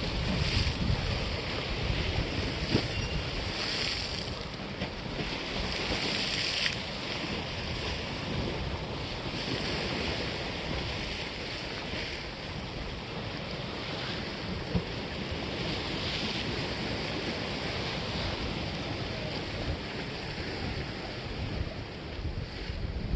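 Sea waves washing against the breakwater's granite blocks, swelling and falling away every few seconds, with wind buffeting the microphone as a low rumble.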